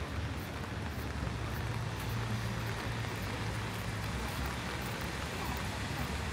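Steady rain falling on the street, with the low hum of a vehicle engine underneath, strongest about two to three seconds in.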